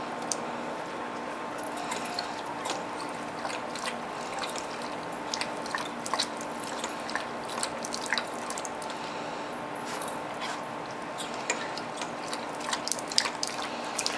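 A husky licking a lick-activated dog waterer on a hose spigot: water drips and trickles out, with many small irregular licking clicks.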